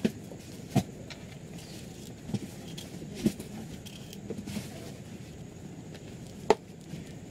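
A handful of sharp taps and knocks as the drone's LiPo battery is handled and put down on a work table, the loudest about six and a half seconds in, over a steady low background rumble.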